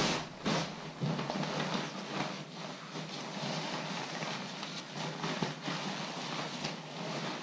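Waterproof bivy bag fabric rustling and crinkling continuously as it is gathered and rolled up by hand, with many small crackles.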